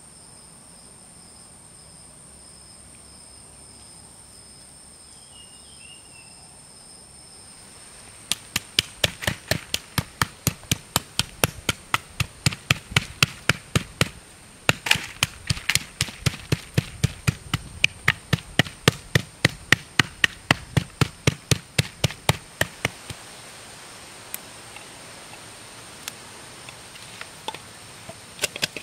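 A heavy knife chopping a raw pig's head on a wooden chopping block: a steady run of sharp strikes, about two or three a second, beginning about eight seconds in, with a brief break in the middle, and stopping several seconds before the end. A steady high insect drone sounds under it.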